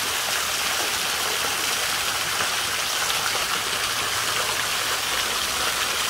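A little waterfall: water running and splashing steadily over rocks into a shallow stream, an even, unbroken sound close by.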